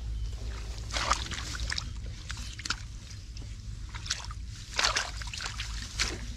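Hands splashing and sloshing in shallow muddy water while groping through the mud for fish, in irregular bursts.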